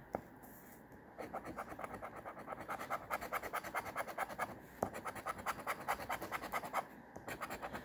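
A large coin scratching the latex coating off a scratch-off lottery ticket, in rapid back-and-forth strokes several times a second. It pauses briefly about halfway through, with a single click, then resumes.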